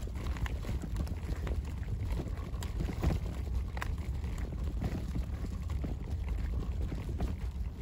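Footsteps and stroller wheels crunching on a gritty asphalt road, a stream of irregular small knocks. Wind rumbles on the microphone throughout.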